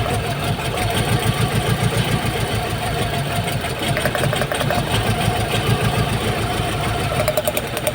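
Mitsubishi 4G63 inline-four engine idling with an uneven, misfiring beat, while its spark plug wires are pulled one at a time to find the dead cylinder.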